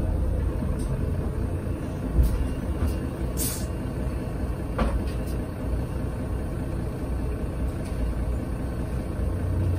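Mercedes-Benz Citaro city bus's diesel engine running at a low steady rumble, heard from inside the cabin at the rear. About three and a half seconds in there is a short hiss of compressed air from the bus's air system, with a few light knocks around it.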